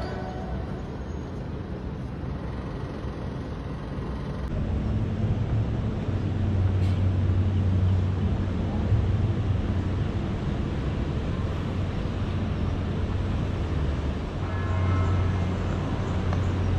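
Steady rumble and running noise of a moving vehicle, with a deeper low hum that swells from about four seconds in.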